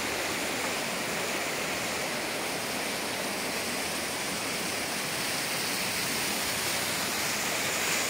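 Waterfall cascading down a sloping rock slab: a steady rush of water.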